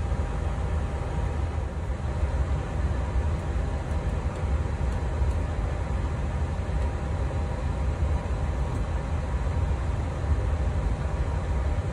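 Steady rumbling hum of a powered-up Boeing 737 MAX flight deck, the airflow of its air-conditioning and equipment cooling, with a faint steady whine above it.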